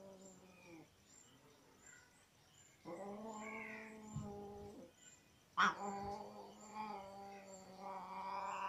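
Mother cat giving low, drawn-out angry yowls, each held at a steady pitch. One ends about a second in, another runs from about three to five seconds, and a third starts with a sharp loud burst at about five and a half seconds and carries on. These are warning calls at the kittens suckling from her.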